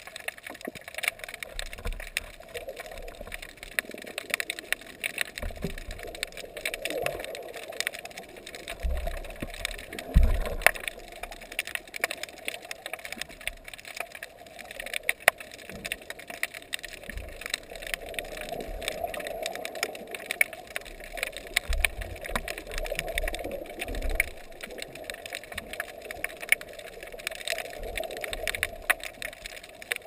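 Underwater ambience on a rocky reef, picked up by a camera underwater: a continuous crackle of sharp clicks with irregular low thumps of moving water against the camera, the loudest about ten seconds in.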